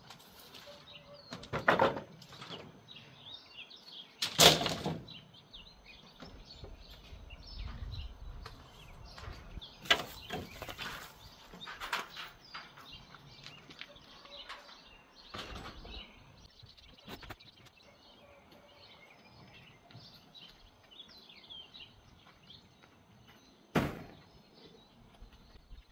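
Wooden boards and a lattice panel knocking and clattering as they are pulled from a scrap-wood pile: a handful of sharp knocks, the loudest about four seconds in and another near the end. Small birds chirp throughout.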